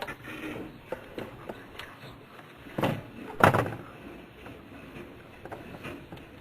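Handling noises from work on a small aircraft instrument panel: a few light clicks, then two thumps about two-thirds of a second apart, the second the louder.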